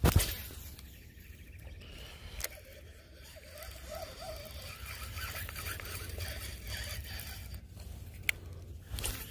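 Fishing rod and reel being cast: a sharp knock at the start, then the scraping whirr of line paying off the spool over wind rumble on the microphone. The cast ends in a backlash, a "bird's nest" of tangled line on the reel.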